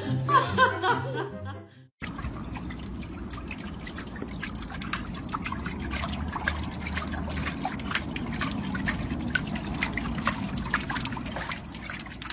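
Upbeat music cuts off about two seconds in. Then water splashes and sloshes steadily in a plastic paddling pool as a chihuahua paddles its legs, with many small quick splashes.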